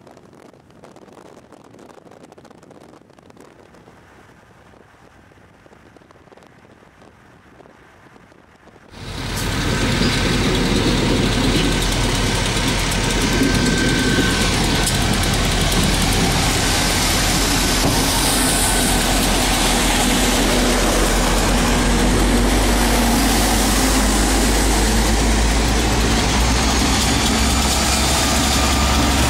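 A faint distant rumble, then about nine seconds in a loud, steady rumble of Canadian Pacific diesel freight locomotives passing close by, mixed with the hiss of traffic on a wet road.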